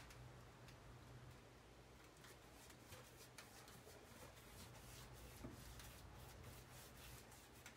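Faint, repeated scratchy strokes of a paintbrush working epoxy bilge paint onto rough sanded fiberglass, over a low steady hum.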